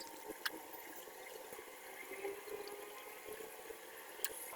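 Steady watery hiss, with two light clicks, one about half a second in and one near the end.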